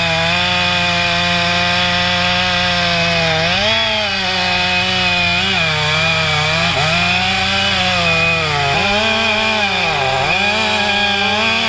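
Stihl MS 500i fuel-injected two-stroke chainsaw running at full throttle while cutting through a sycamore stump, its pitch dipping and recovering several times as the chain bogs under load in the wood.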